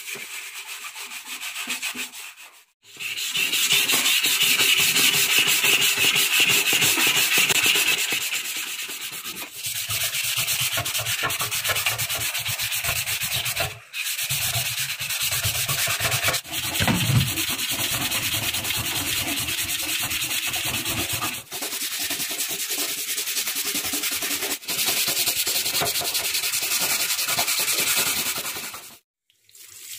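Hand scrubbing with steel wool and an abrasive pad on the wet, soapy steel fuel tank of a Honda CG125, scouring off surface rust. Rapid back-and-forth scratching in long stretches, broken by several brief pauses.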